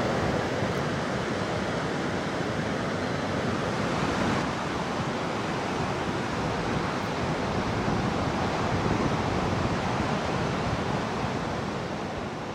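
Sea surf breaking against a rocky breakwater, a steady rush of waves.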